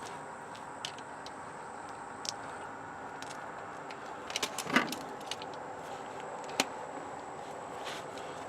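Light metallic clicks and clinks of hand tools, a torque wrench and fasteners being handled, with a short cluster of clinks about halfway through and a single sharp click later.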